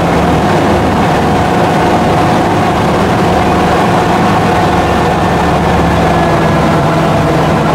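Engine of a WWII-era amphibious duck boat running steadily as it cruises on the river, a constant low drone with a steady hum.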